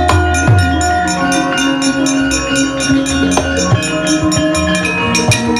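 Gamelan music accompanying a wayang kulit performance: metallophone and gong-chime tones ring steadily over a stream of sharp strikes, with low drum beats near the start.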